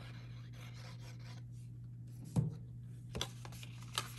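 Cardstock being handled and folded by hand: soft paper rubbing and sliding over a faint steady hum, with a few short crisp taps, the sharpest about two and a half seconds in and lighter ones near three and four seconds.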